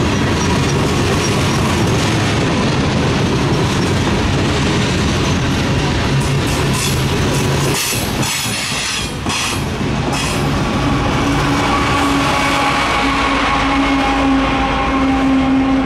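Mixed freight train rolling past close by, its wheels clattering and rumbling over the rail joints, with a run of sharp metallic squeaks and clicks in the middle. About eleven seconds in a steady high whine joins the rumble.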